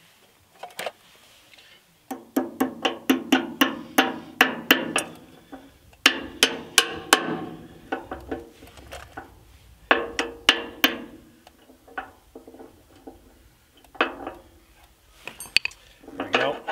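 Hammer tapping on the towing-tongue lock's spring-loaded pin and cast-iron housing to seat it, each tap ringing briefly. The taps come in three quick runs of about five a second, then two single taps near the end.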